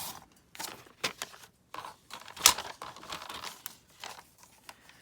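Paper being handled: a run of short, irregular rustles and crinkles, the loudest about two and a half seconds in.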